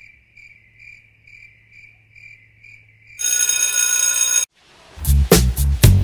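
Faint high beeping, about two pulses a second, then a bell ringing loudly for just over a second and cutting off sharply. Funk music with a strong beat starts near the end.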